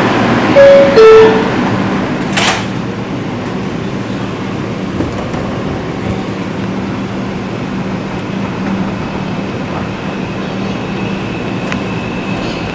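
R142 subway car's two-note descending door chime, then the doors shutting with a thump. After that the car runs with a steady rumble and low hum as the train pulls out of the station.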